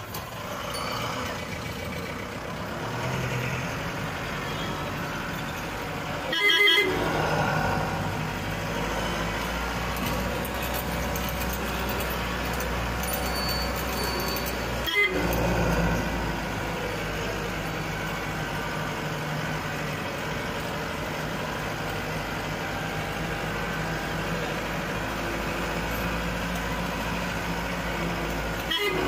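Vehicle engine running as it drives slowly. A horn sounds briefly about six seconds in, and another short loud sound comes about halfway through.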